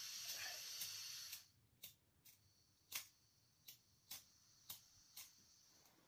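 Camping gas stove: a steady hiss of gas that cuts off about a second in, then seven sharp clicks of the piezo igniter at uneven gaps, with the burner failing to light.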